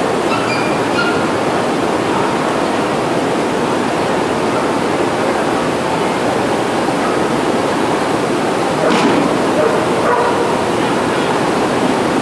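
Heavy rain pouring steadily on a covered arena's roof, with a dog barking at moments over it and a short knock about nine seconds in.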